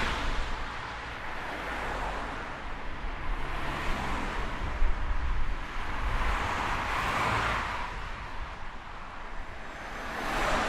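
Road traffic: a steady rush of cars with a low engine rumble, and several cars passing close by one after another, each a swelling whoosh of tyre noise. The loudest pass comes around seven seconds in.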